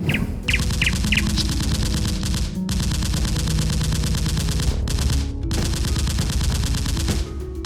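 Rapid automatic gunfire sound effects: continuous machine-gun bursts that break off briefly twice, over background music.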